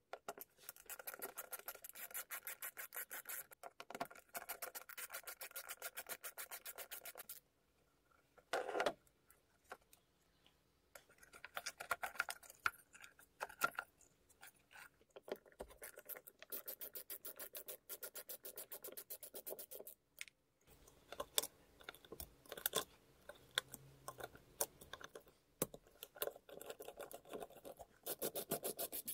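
Screwdriver work on small screws in a power mixer's handle switch and wiring: long runs of fast, even clicks and scraping, broken by short pauses, with one louder scrape about nine seconds in.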